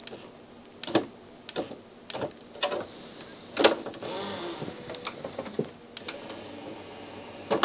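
Grundig FineArts CD11 CD player's disc tray mechanism being worked: a string of sharp plastic clicks, then a small motor whirring faintly for about two seconds.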